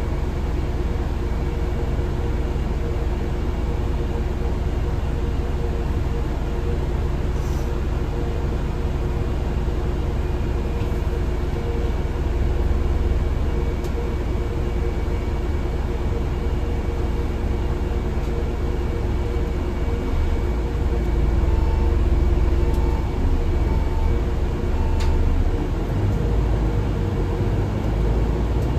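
Interior of a MAN Lion's Intercity LE 13 diesel bus under way: a steady engine drone and road rumble in the cabin, growing louder about two-thirds of the way through. A short beep sounds four times, about a second apart, around then.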